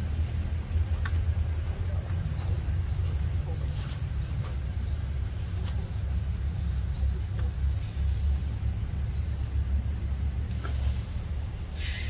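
Steady high-pitched buzz of forest insects over a low, uneven rumble, with a few faint clicks.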